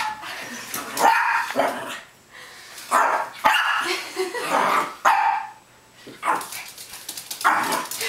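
Small terrier puppy barking repeatedly in short sharp bunches with brief pauses between: alarm barking at an unfamiliar metal bird ornament.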